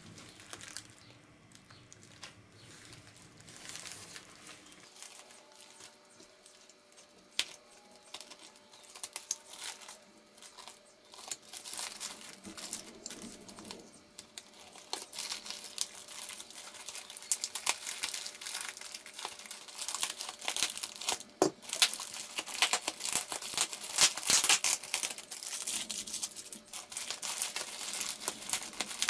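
Plastic mailing bag crinkling and tearing as it is handled, slit with a utility knife and pulled open: irregular crackles and rustles, busier and louder in the second half.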